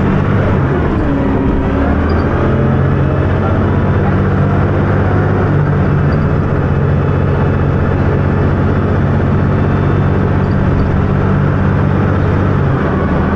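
Dennis Arrow double-decker bus engine running hard with a steady, loud drone. The engine note drops away near the end.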